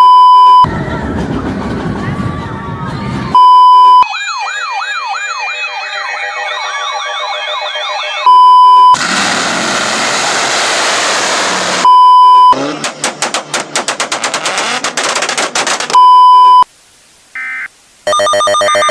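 A loud montage of electronic sounds, each cut off by a short, very loud beep. In turn come a low noisy rumble, a siren-like wail sweeping quickly up and down over and over, a hiss of static and a rapid rattle of clicks. Near the end it drops to near silence before a steady electronic buzz with many tones starts.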